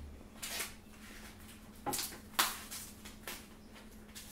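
Hands handling raw steaks in a tray: a few short rustles and light taps, over a faint steady hum.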